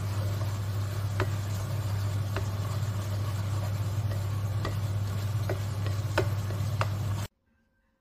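Chopsticks stirring instant noodles and cheese in a pot, with six light clicks of the chopsticks against the pot, over a steady low hum. It all cuts off suddenly near the end.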